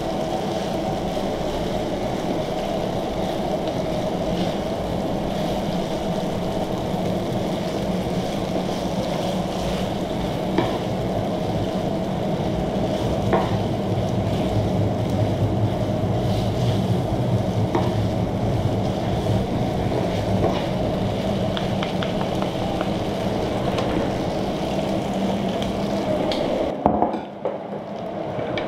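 Shrimp and noodles sizzling on an electric flat-top griddle while they are tossed with metal tongs and a wooden spatula, with a few sharp clicks of the tongs against the plate. A steady hum runs underneath, and a knock sounds near the end.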